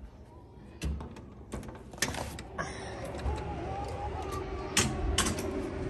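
Glass entrance doors being pushed open: a few sharp latch clicks in the first two seconds, then steady outdoor noise with a low rumble. Two more sharp clicks come near the end.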